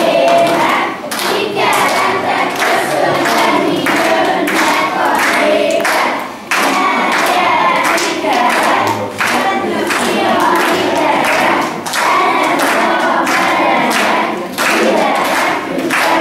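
A group of young children singing a song together, with scattered thumps and claps from their dancing.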